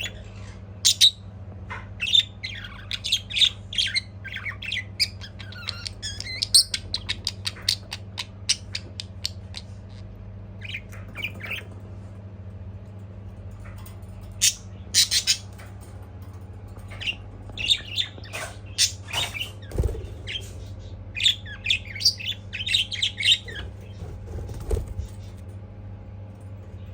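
Budgerigar chirping and warbling in quick bouts of short high notes, with a quieter stretch in the middle, over a steady low hum. Two dull low thumps come near the end.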